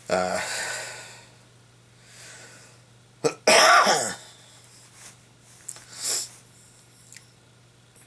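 A man coughing: a hard cough right at the start, a louder one about three and a half seconds in, and a smaller one around six seconds.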